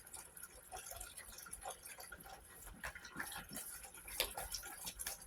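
Faint, irregular light clicks and ticks.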